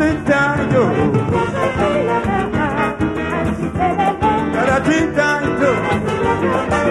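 Live calypso band playing an instrumental break, with brass carrying the tune over bass and drums.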